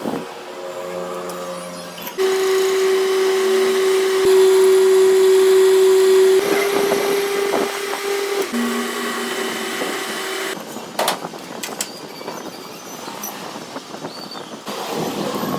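Metal lathe running with a steady machine hum, its pitch and level changing abruptly several times; the last few seconds are noisier, with scattered clicks and clatter.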